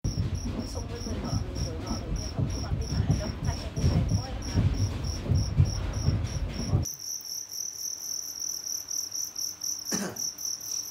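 Fighting crickets chirping in a steady rhythm, about three short high chirps a second. For the first seven seconds or so a low rumble lies under the chirps and then cuts off suddenly; after that the chirping is clearer.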